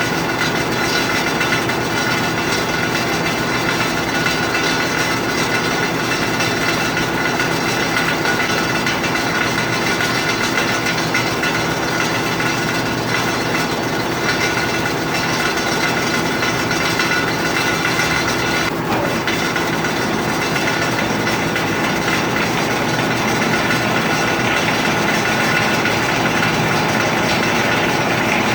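Steady drone of a ship's engine-room machinery, diesel engines running, with one short click about two-thirds of the way through.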